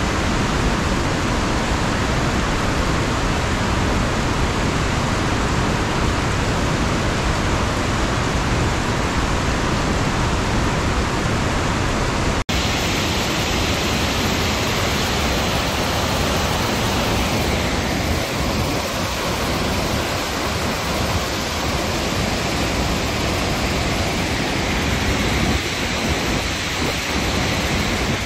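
Steady rushing noise of a car driving on a wet road in heavy rain: tyre spray and rain with road noise, and no engine note standing out. It cuts out for an instant about twelve seconds in.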